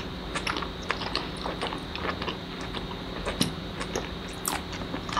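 Close-miked ASMR mukbang chewing of seafood, played back: irregular sharp clicks and crackles of mouth and food over a faint steady hum.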